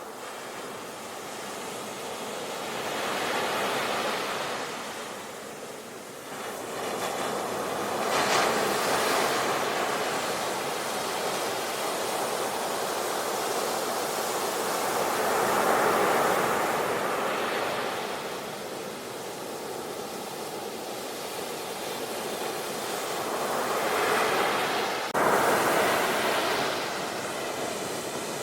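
Ocean waves washing onto the shore, the surf swelling and fading every several seconds.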